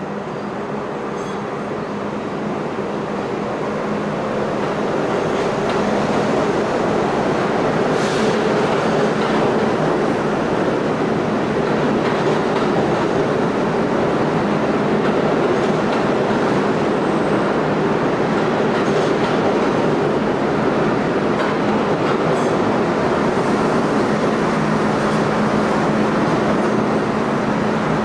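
R32 subway train pulling out of an underground station: the running noise of its cars grows over the first several seconds as it picks up speed, then holds steady as the train passes along the platform, with a steady low hum underneath.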